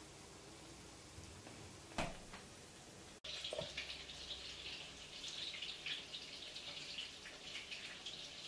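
A single knock about two seconds in. Then soy sauce trickling and dripping from a glass bottle into a small ceramic dipping dish, a faint irregular splashing that goes on for several seconds.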